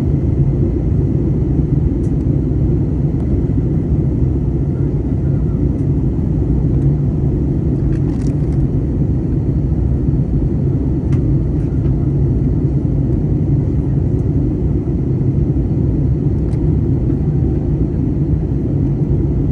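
Cabin noise inside an Airbus A320neo airliner in flight: a steady low rumble of engines and airflow, with a couple of faint clicks.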